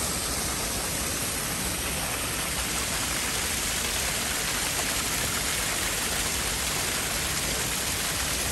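Sulphur spring water pouring over rock into spa pools, a steady continuous splashing.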